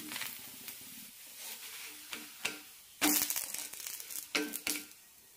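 Wooden spatula scraping under a dosa and flipping it on a tawa: a few short scrapes, with a louder, longer scrape about three seconds in.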